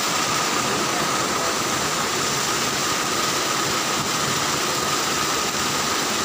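Steady rush of water pouring over a small waterfall into a rocky stream, an even hiss with no breaks. A thin steady tone sits faintly under it.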